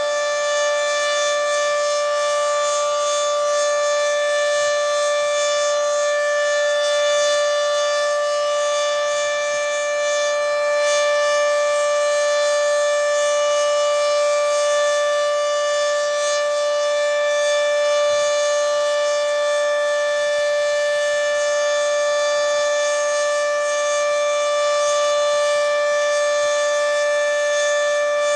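Federal Signal 2T22A dual-tone rotating tornado siren sounding the steady Alert signal at full speed. It holds one unchanging chord of tones, loud and even throughout.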